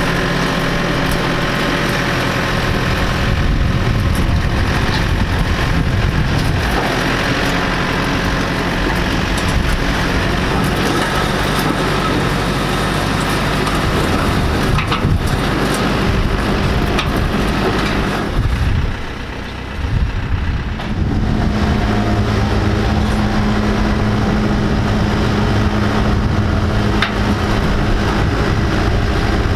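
Case backhoe loader's diesel engine running under load as it pushes a steel shipping container across the dirt. The engine sound dips briefly about two-thirds of the way through, then comes back with a steadier hum.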